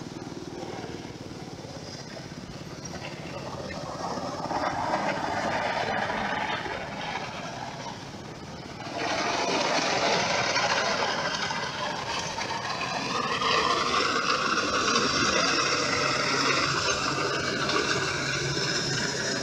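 Tracked 8060 rice combine harvester driving along a road: its diesel engine running with the clatter of its crawler tracks, louder from about nine seconds in as it comes close. A whine joins in about two-thirds of the way through.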